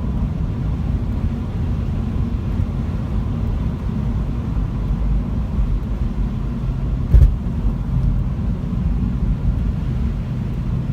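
Honda Civic sedan driving, with a steady low road rumble and one sharp knock about seven seconds in as it goes over a bump or road joint. This is the suspension knock that the owner places at the front right.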